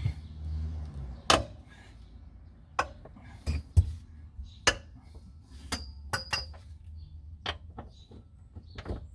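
Ratchet and socket working the bolts of the driveshaft's centre carrier bearing: irregular sharp metal clinks and knocks, a quick cluster of them about six seconds in.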